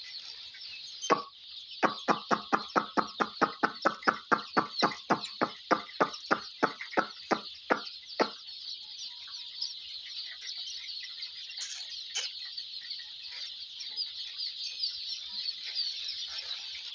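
A hen clucking: a single cluck about a second in, then a quick run of clucks, about three a second, for some six seconds. Under it runs a constant high-pitched peeping from a crowd of chicks.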